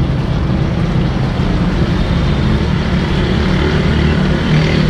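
Steady low rumble of street traffic, with motor-vehicle engines running.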